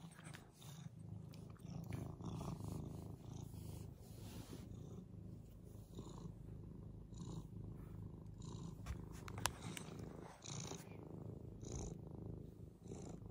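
An old tortoiseshell cat purring steadily close to the microphone, with faint rustles now and then.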